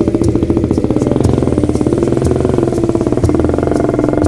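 Small motorcycle engine running at a steady low speed, with a fast, even firing pulse.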